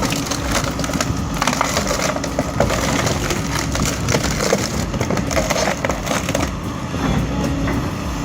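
Excavator-mounted splitting knife forcing through large birch logs: repeated irregular wood cracking and splintering over the steady drone of the excavator's engine and hydraulics.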